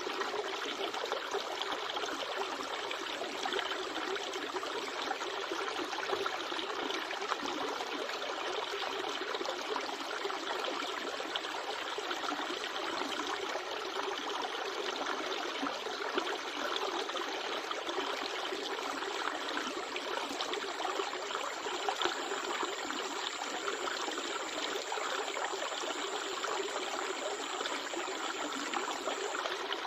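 River water running steadily, an even, unbroken trickling flow. A faint, high, steady whine joins about two-thirds of the way in.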